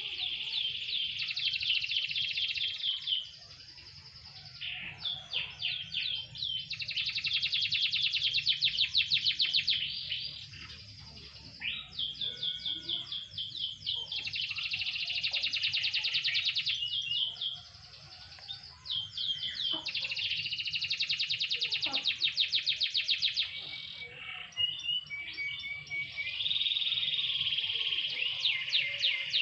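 Domestic canary singing: about five long song phrases of fast, high trills and rolls, each several seconds long, broken by short pauses.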